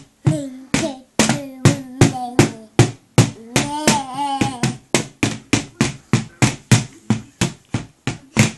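A toddler beating a pink children's toy drum kit with drumsticks: a steady run of strikes, about two or three a second, each drum hit ringing briefly.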